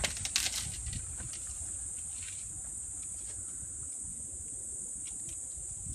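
Steady high-pitched drone of insects, with a few sharp cracks of wood in the first second as an African elephant bull breaks at the branches of a knob thorn tree.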